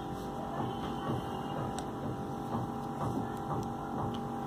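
Steady electrical hum, with a few faint clicks of knitting needles as stitches are knitted.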